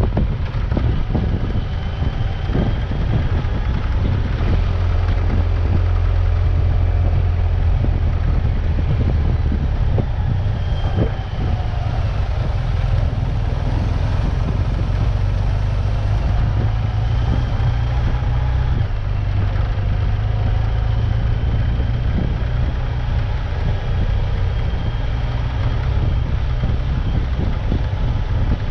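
Off-road vehicle on the move: a steady, loud low rumble of engine and ground noise, with faint rising and falling whines over it.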